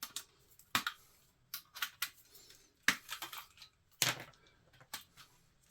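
Wire snips cutting the wires inside a dismantled power strip: a string of sharp, irregular clicks and snaps.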